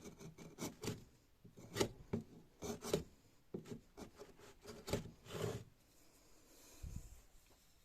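A steel chisel scraping in short, irregular strokes, with a few sharper knocks among them, quieter toward the end with one low thump.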